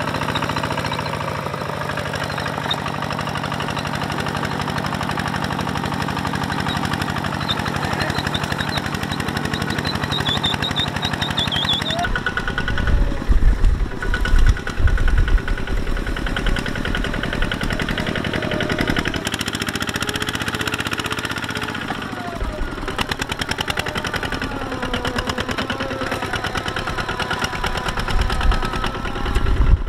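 Single-cylinder diesel engines of two-wheel walking tractors chugging in a fast, steady beat under load as they haul loaded trailers through soft dirt. About twelve seconds in the sound changes to a closer engine with heavy low rumbles.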